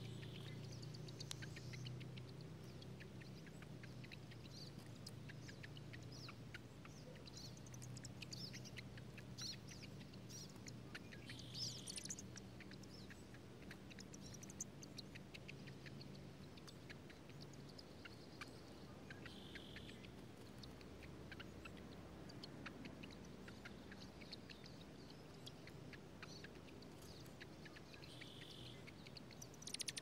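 Faint scattered ticking of raindrops falling on dry grass and dead leaves around a ground nest. A bird gives a short high chip every eight or nine seconds, four times in all, over a low hum that fades out about halfway.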